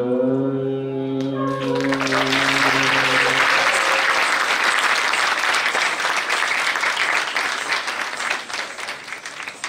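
Audience applauding, starting about a second and a half in and thinning out near the end, over the last held notes of the dance music, which stop about four seconds in.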